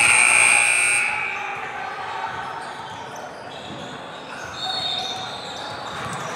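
Gym scoreboard buzzer sounding for about a second, followed by a basketball bouncing on the court and voices echoing in the gym.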